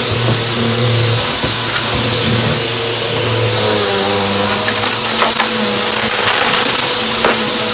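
Vacuum cleaner running steadily, with a few sharp crackles and clicks as it sucks up crunchy debris.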